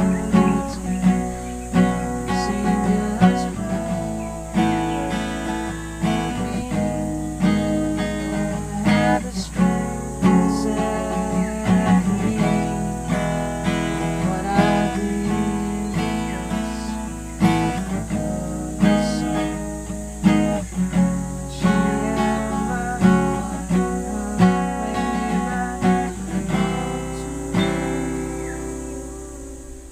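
Acoustic guitar music, plucked and strummed, fading out near the end.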